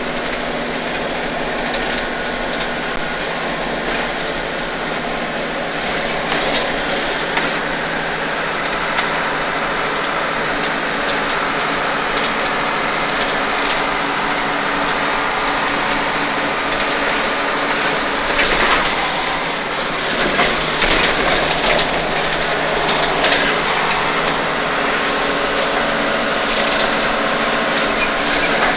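Steady engine and road noise inside a moving vehicle, with a low hum under a constant rushing hiss. A few sharp rattles and knocks come about two-thirds of the way through.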